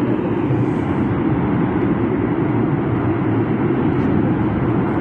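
Fire from a ruptured, worn-out oil transmission pipeline burning with a steady, deep roar, without pauses.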